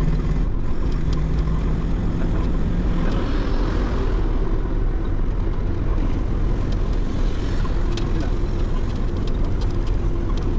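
Lorry engine and road noise heard inside the cab at highway speed: a steady drone whose engine note changes about three seconds in, with a few light clicks.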